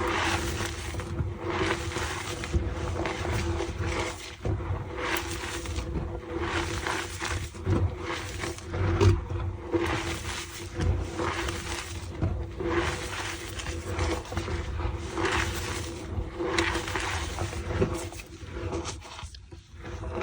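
Pilates reformer squeaking and creaking as its carriage slides back and forth, in repeated strokes about once a second.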